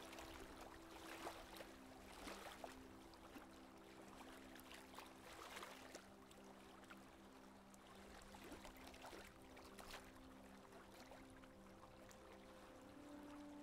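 Faint rush and splash of water along a sailboat's hull as it runs downwind under jib, with irregular small splashes, over soft background music of held notes.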